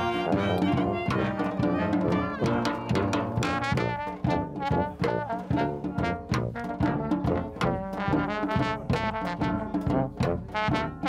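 Brass band playing a tune together: sousaphones, trumpet, saxophone and clarinets over a bass drum and snare drum keeping a regular beat.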